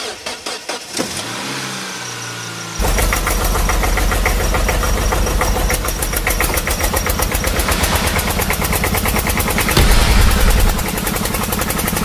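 Tractor engine starting about three seconds in, then running with a fast, even chug. It swells briefly near the end.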